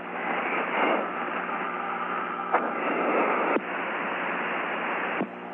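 Hiss and static on the air-to-ground radio channel with no voice, over a faint steady hum; the noise shifts abruptly in level a few times.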